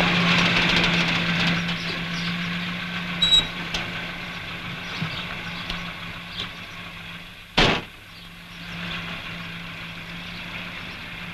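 Car engine running steadily on an old film soundtrack, louder over the first few seconds and then easing off. A single sharp thump comes about two-thirds of the way through.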